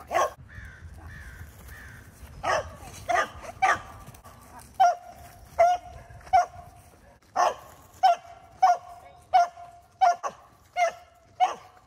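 A dog barking repeatedly with short, sharp barks that come closer together in the second half, typical of a dog excited while working.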